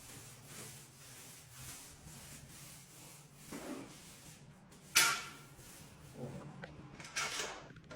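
Faint, even rubbing strokes about once a second, then a few sudden scrapes and knocks, the loudest about five seconds in.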